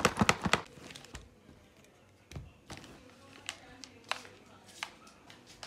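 A ring fill light being handled and pulled out of its cardboard box: a quick run of rustles and clicks at the start, then scattered light taps and knocks of cardboard and plastic.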